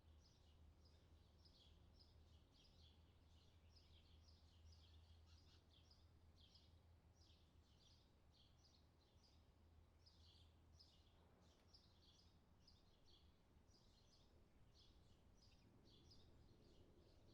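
Near silence: a faint low hum under a continuous run of faint, short, high-pitched chirps, several a second, from small animals calling in the distance.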